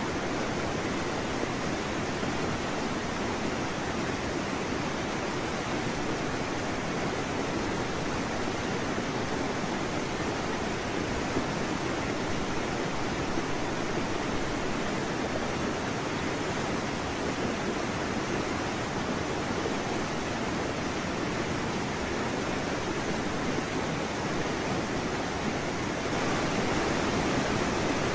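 Steady rushing noise of wind and open water, even throughout with no distinct splashes, knocks or voices, growing slightly louder near the end.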